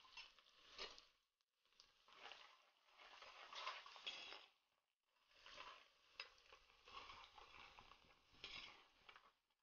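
Faint sizzling of chopped shallots, ginger and garlic frying in hot coconut oil in an earthenware pot, stirred with a steel spoon. The sizzle drops away briefly twice.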